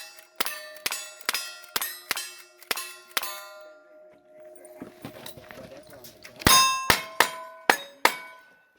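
Steel shooting targets being hit in quick succession, each hit a sharp clang followed by a ringing tone, about two hits a second. One string of hits runs until about three seconds in; after a pause of about three seconds a second string starts.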